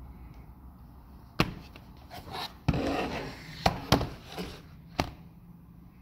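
An HP ProBook 430 G3 laptop being turned over by hand and set down on a desk: a series of sharp knocks and clatter from its casing, with a brief scraping rustle about three seconds in and two close knocks just before four seconds.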